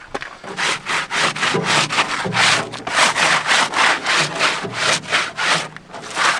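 A hand tool scraping back and forth in quick, even strokes, about two or three a second, with a short pause near two seconds in.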